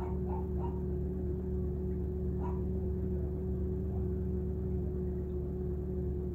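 Steady low hum heard from inside a car, with a few short high yelps, like a small dog's: three in quick succession within the first second and one more about two and a half seconds in.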